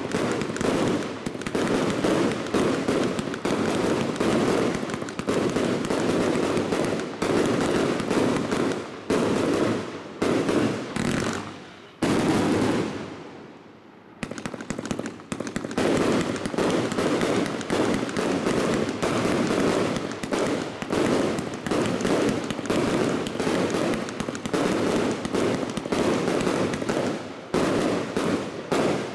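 A Master Fireworks M5-MF45 208-shot fireworks cake with 25 mm and 30 mm tubes firing a rapid, continuous barrage of shot launches and bursts. About twelve seconds in, it dies away for roughly two seconds, then the barrage resumes.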